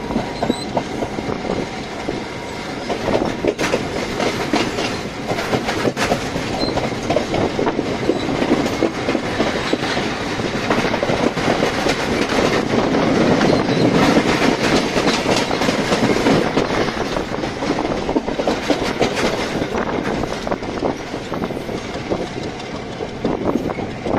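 Passenger train running at speed, heard from the open doorway of a carriage: a steady rumble of the coach with the wheels clicking over rail joints, louder around the middle.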